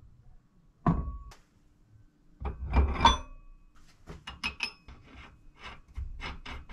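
Metal parts knocking as a dirt bike wheel is set down onto a threaded-rod axle: a single clunk with a short metallic ring about a second in, a louder cluster of knocks around three seconds, then a run of lighter clacks, about three a second, near the end.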